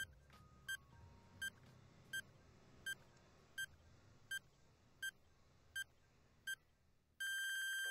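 Quiz countdown timer sound effect: a short electronic beep about every three quarters of a second, about nine in a row. It ends in a long steady buzzer tone near the end as time runs out.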